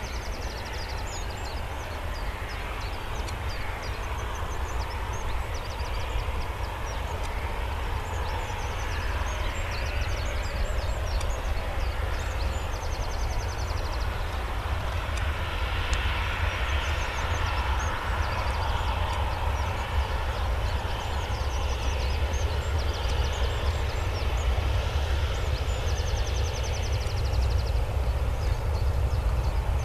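Boeing 737-700 (USAF C-40B) twin jet engines running as the airliner rolls along the runway after landing: a steady distant roar with a deep rumble underneath, growing slightly louder toward the end.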